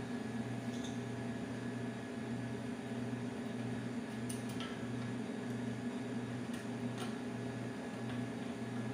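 A steady low machine hum, like a room fan or appliance running, with a few faint clicks near the middle as a screwdriver works at the metal frame of a chair.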